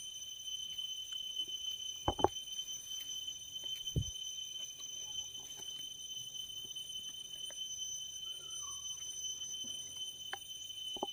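A few soft knocks and rustles as hands handle a woven bamboo basket on a cut bamboo shoot. The clearest knocks come about two seconds in, at four seconds and near the end, over a steady high-pitched whine.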